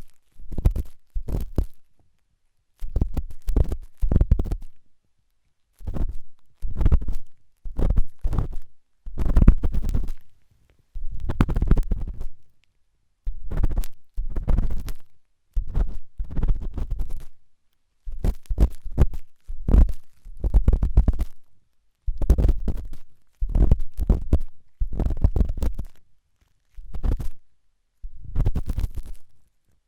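Ear-cleaning tool scraping hard inside an ear, right at the microphone: repeated strokes of crackly scratching with a deep rumble, each lasting about half a second to a second and a half, with short silent gaps between them.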